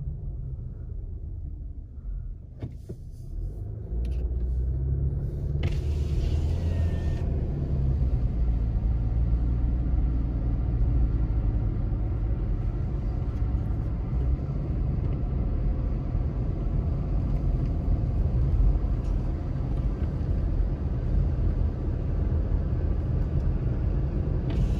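Car engine and road noise heard from inside the cabin while driving: a steady low rumble that grows louder about four seconds in as the car pulls away from an intersection, then holds even.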